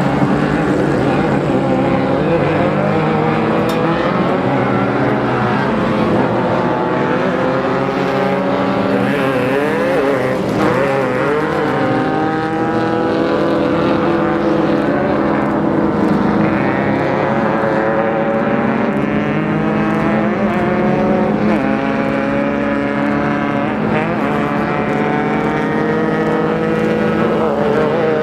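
Off-road race car's engine running hard under load, its revs climbing and dropping back again and again.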